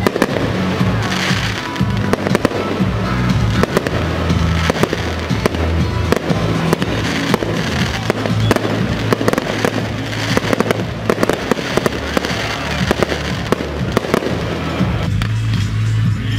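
Fireworks display: aerial shells bursting in rapid, irregular bangs and crackles, over music with a steady bass line.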